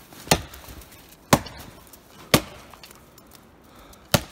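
Axe chopping into a thin standing dead tree: four sharp blows about a second apart, the last after a slightly longer pause.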